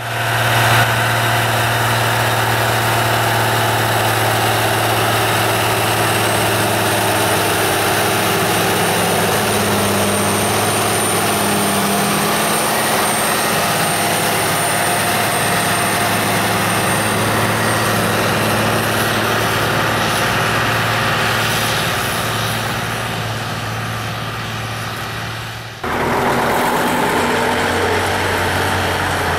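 Ursus 1224 Turbo tractor's four-cylinder turbocharged diesel engine running steadily and loud, with an abrupt change in the sound a few seconds before the end.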